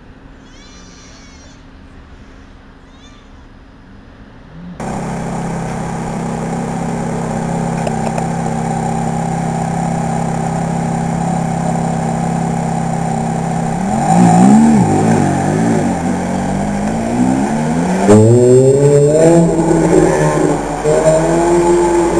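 A few faint chirping calls, then, about five seconds in, a Ferrari F430's V8 idling, loud and steady. Near the middle it is blipped once, the pitch rising and falling, and near the end it pulls away with the pitch climbing in several sweeps through the gears.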